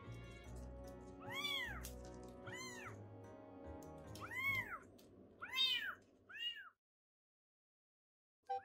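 Baby kittens meowing repeatedly, about five or six short, high, rising-and-falling mews over soft background music. Everything cuts out about seven seconds in.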